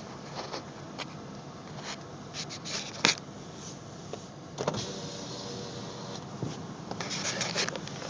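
Scattered clicks and knocks from handling inside a car, the sharpest about three seconds in, over a muffled steady rush of wind and surf from outside.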